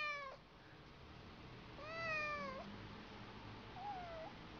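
A cat meowing: the tail of one meow at the start, a clear meow about two seconds in that drops in pitch at the end, and a short faint mew near the end.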